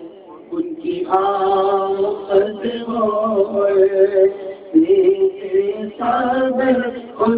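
A man's voice sings an unaccompanied devotional salaam into a microphone in long, drawn-out held notes. There is a short breath-pause near the start and brief pauses later.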